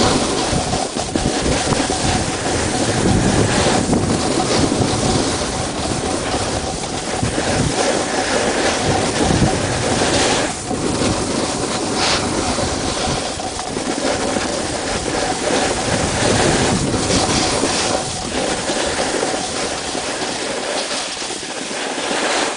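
Wind noise on the microphone: a steady rush with an unsteady low rumble, and a faint steady whine underneath.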